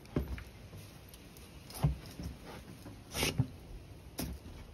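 A few soft footsteps in slippers, thudding irregularly on a wooden deck and stone steps, over a low wind rumble on the microphone.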